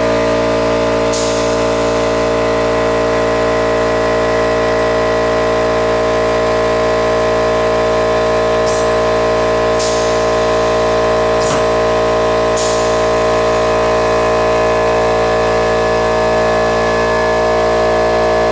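Small air compressor motor running steadily as it refills its tank, a loud even hum that starts abruptly and cuts off abruptly about nineteen seconds later, with a few sharp clicks over it.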